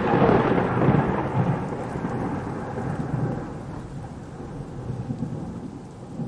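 A thunder rumble rolling and slowly dying away after a crack, over steady rain.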